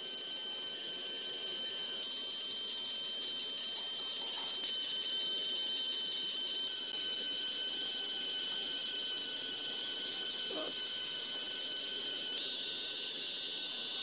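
A small motor whining steadily at a high pitch, with several steady tones over a faint hiss. It gets louder about a third of the way in, and the tone shifts near the end.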